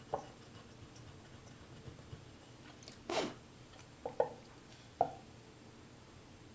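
Light knocks of a clay mug, pencil and eraser being handled and set down on a bamboo board: one just after the start, two close together a little past four seconds, one at five seconds. About three seconds in comes a short scrape.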